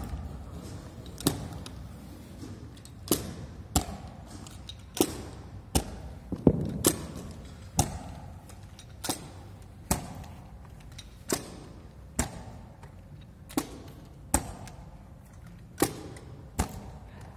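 Sharp, short knocks from a hand-held carpet-seaming tool, about one a second at uneven spacing, as carpet joints are pressed closed, over a steady low hum.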